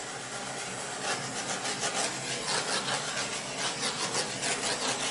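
Handheld butane torch flame hissing steadily as it is passed over wet acrylic pour paint to pop air bubbles. It starts with a click and cuts off near the end.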